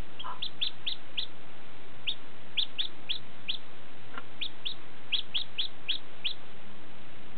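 Chicken chick peeping from inside its pipped egg while it hatches: a string of short, high, falling peeps in three quick runs.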